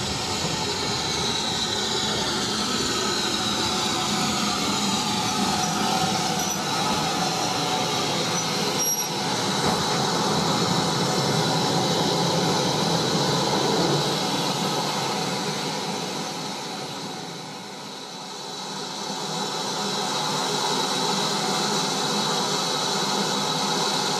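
BR Standard 4 class 2-6-4T steam tank locomotive and its train running into a station and slowing, with squeals that fall in pitch as it slows. The sound dips briefly about three-quarters of the way through, then a steady noise with a high tone carries on.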